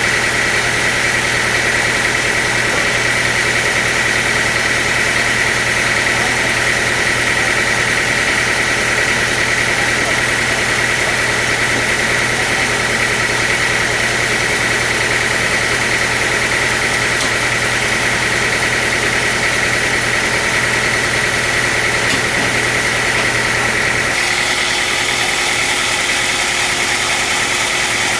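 Sawmill machinery running steadily, with a continuous high whine over a low hum. Near the end the hum drops out and the whine changes a little.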